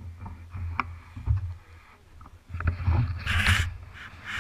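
Low wind rumble and handling noise on the camera's microphone, with a loud rustle about three seconds in as dark clothing fabric brushes across it.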